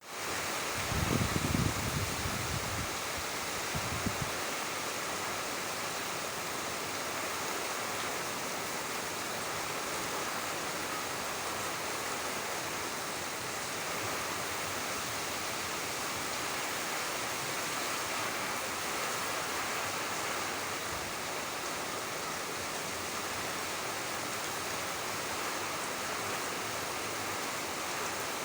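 Steady rain falling, an even hiss. A few low rumbles between about one and four seconds in stand out above it.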